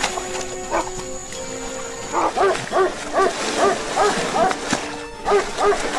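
A dog barking repeatedly and fast, about two to three barks a second, starting about two seconds in, over background music.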